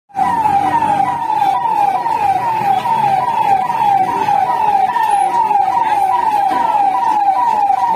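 Fire engine siren sounding, a fast repeated falling tone at about two and a half sweeps a second.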